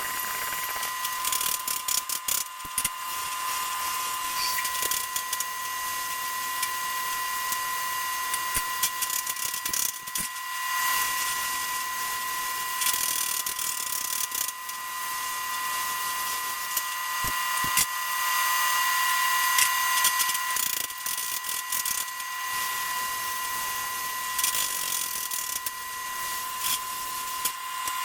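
Plasma cutter torch cutting a steel spacer ring as it turns in a running lathe: a steady high whine over a hiss, with frequent crackles.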